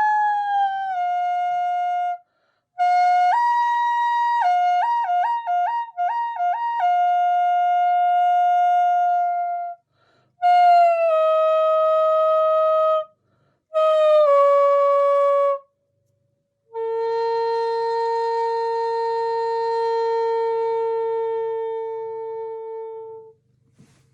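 Bamboo flute playing a slow melody in short phrases with brief pauses between them. A quick back-and-forth between two notes comes a few seconds in, and it ends on a long held low note that fades away.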